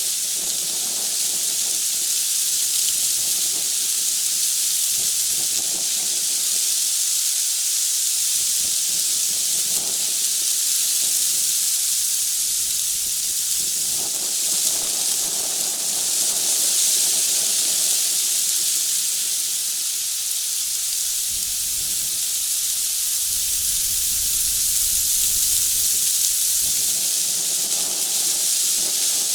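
A steady, high-pitched hiss that does not change.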